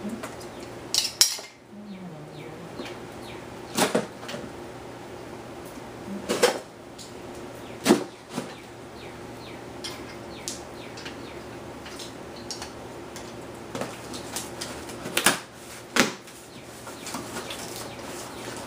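A cardboard shipping box being opened by hand: several sharp clicks and knocks spread through, with faint scraping and rustling in between.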